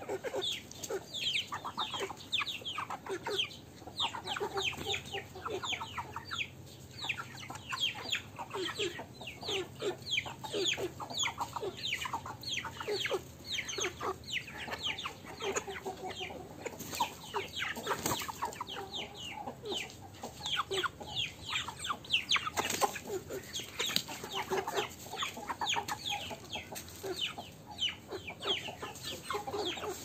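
A flock of young Aseel chickens clucking and peeping as they feed. Many short, high, falling calls come several a second and overlap, with lower clucks beneath.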